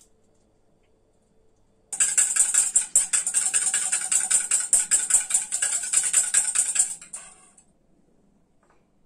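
Wire whisk beating egg in a stainless steel bowl: a fast, steady metallic clatter that starts about two seconds in and stops about five seconds later.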